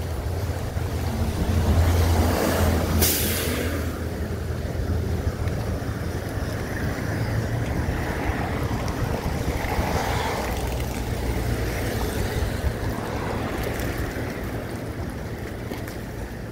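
Road traffic passing: a vehicle's low rumble swells about two seconds in and then runs on before fading near the end, with a short hiss about three seconds in and wind on the microphone.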